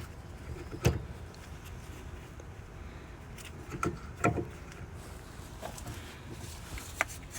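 A few short metal clinks and knocks, spread out and separated by a low steady hum: a rear brake caliper being worked back over new pads and lined up with its bolt holes.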